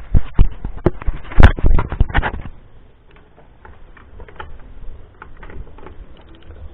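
Sharp metallic clicks and knocks as a spark plug wrench is fitted and worked on the plugs of a Kawasaki GPZ 500 twin, a dense run in the first two seconds or so, then quieter scattered ticks.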